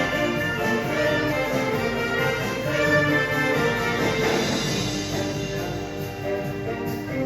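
Marching showband playing live, brass leading with held chords over a steady drum beat.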